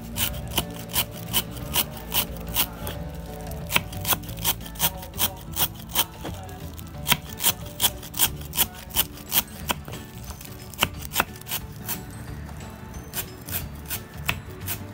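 Large knife chopping green herbs on a wooden cutting board: a run of sharp, regular strokes about two or three a second, broken by a few short pauses.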